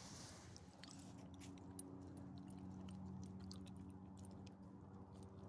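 An elderly small dog eating from a person's hand: faint, irregular little clicks of chewing and mouthing from about a second in until near the end, over a steady low hum.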